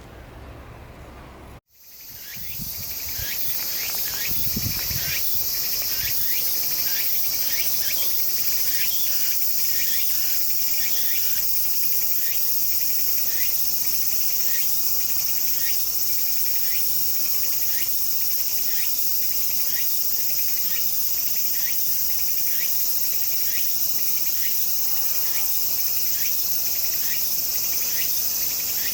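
Insect chorus: a dense, steady high-pitched trill with a separate short chirp repeating about twice a second. It cuts out briefly a couple of seconds in and then fades back up.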